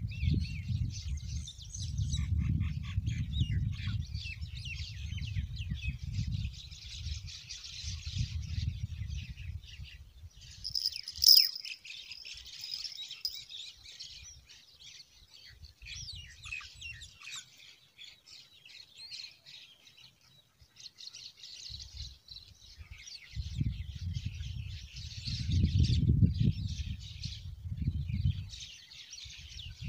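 Small birds chirping and twittering continuously, with a low irregular rumble through the first ten seconds and again near the end. One sharp click about eleven seconds in.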